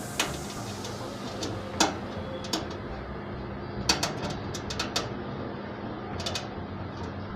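Sharp metallic clicks and taps at irregular intervals, about eight in all, as small screws are handled and set into a sheet-metal PC cabinet.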